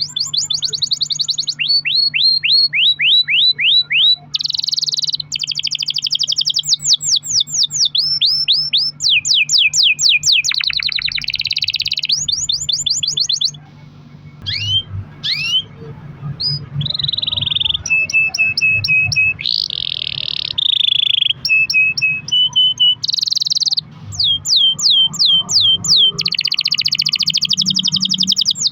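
Canary singing a long rolling song: rapid trills of repeated sweeping notes, changing from one roll to the next, with a short pause about halfway through.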